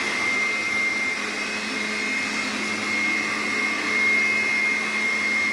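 Handheld electric air blower running in vacuum mode, a steady motor rush with a high whine, sucking dust and dirt off the floor into its cloth bag.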